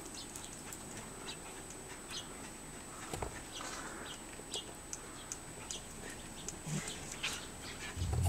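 Corgis running and playing in snow: scattered short, high crunches and clicks, with a low dog sound building near the end.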